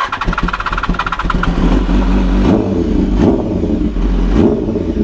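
A 2013 BMW S1000RR's inline-four cranks on its starter for about a second and a half, then catches and runs, with about three short throttle blips through its new Racefit exhaust. It is a cold start that was slow to fire because the throttle was being revved as it started.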